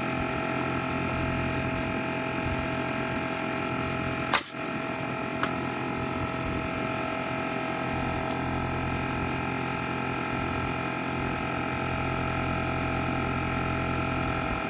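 Bostitch air compressor running with a steady hum, and a pneumatic nail gun firing once about four seconds in, followed a second later by a faint click.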